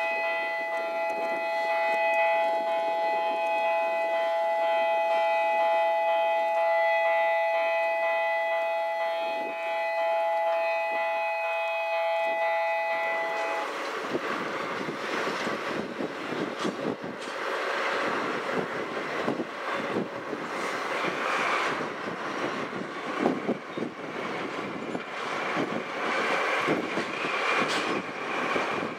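A steady warning siren of several fixed tones sounds and cuts off abruptly about halfway through. A DD51 diesel locomotive hauling cement tank wagons then crosses the bridge, with engine noise and the repeated clatter of wheels over rail joints, buffeted by strong wind on the microphone.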